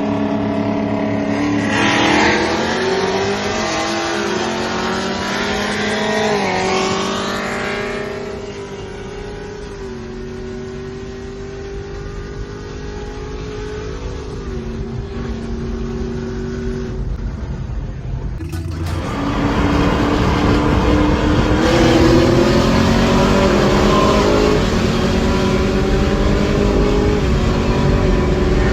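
High-performance car engines accelerating hard, rising in pitch through the gears. The sound cuts abruptly about eighteen seconds in to another engine pulling hard.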